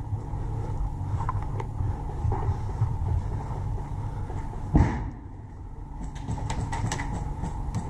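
Movement noise on a body-worn camera as a player walks: a low rumble of footsteps and jostling with small clicks and rattles of gear. One sharp knock about five seconds in, followed by a quieter moment.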